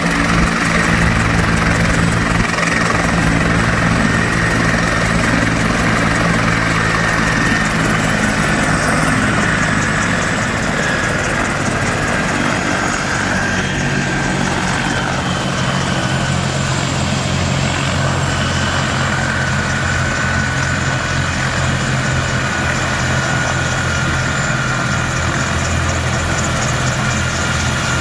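Bell medium turbine helicopter running on the ground with its rotor turning after touchdown: a steady low rotor hum under a high turbine whine that slowly falls in pitch.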